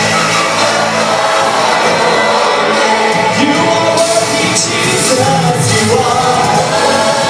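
Live pop-rock band music with singing, loud and steady throughout.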